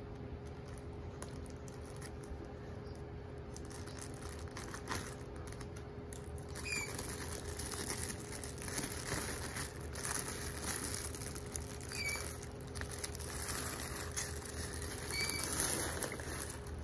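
Rustling and crinkling of plastic packaging and bubble wrap being handled in a cardboard box, busier and louder in the second half.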